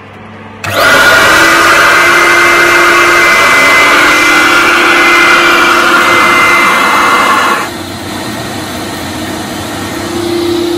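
The two vacuum motors of an Ashbys Enforcer carpet cleaning machine starting up and running loudly: a rushing exhaust with a steady whine. About three quarters of the way through the sound drops sharply and runs on much quieter as the baffle silencer is fitted over the machine's exhaust.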